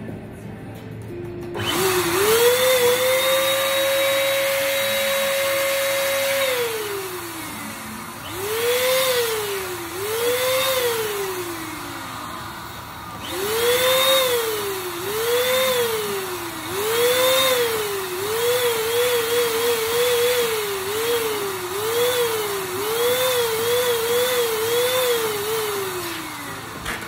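Electric balloon inflator's motor whining as it blows up a clear bubble balloon: one long run of about five seconds, then a dozen or so short bursts, each rising in pitch as the motor spins up and falling away as it stops, some in quick stutters near the end.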